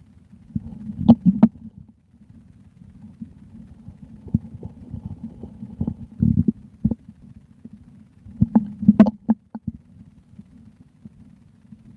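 A human stomach gurgling and rumbling, picked up close on the belly: a steady low rumble with bouts of wet, sloshing gurgles and sharp pops, loudest about a second in and again around nine seconds in.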